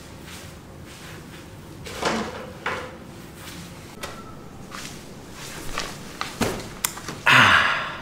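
Wooden chair knocking as it is handled and set down: a few sharp knocks, then a louder scrape near the end.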